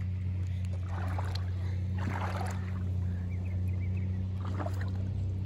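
Boat motor running steadily, a constant low hum.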